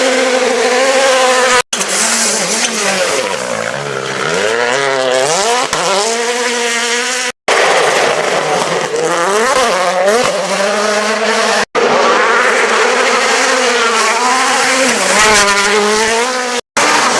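World Rally cars driven flat out on gravel, heard in several short clips cut together. Engine pitch climbs and drops sharply with each gear change and lift, over a hiss of tyres and gravel. Four abrupt cuts split the sound into separate passes.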